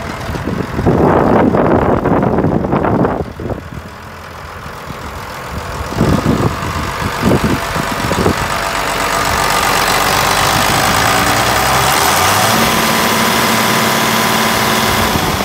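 Massey Ferguson 6465 tractor's Perkins diesel engine idling steadily, heard up close at the engine bay. Loud rushing bursts cover it in the first few seconds, with a few shorter ones around the middle.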